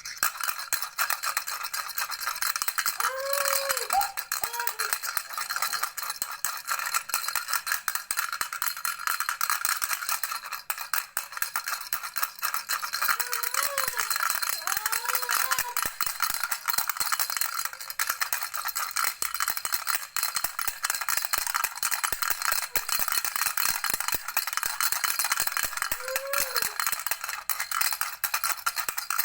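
A baby's toy rattle shaken continuously, a dense stream of fast clicks and rattling. A few short squeaky tones that rise and fall come through at moments.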